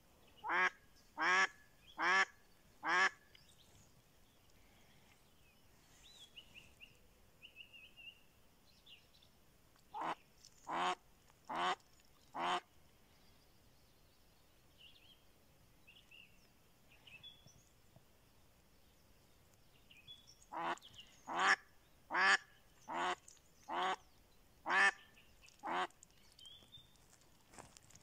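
Live decoy hen duck quacking in three runs: four quacks, then four more, then about seven, calling to lure a drake. Faint small-bird chirps can be heard between the runs.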